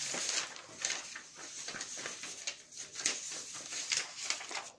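Sheets of paper rustling and sliding over a desk as a page is moved aside, a run of short crackles and scrapes.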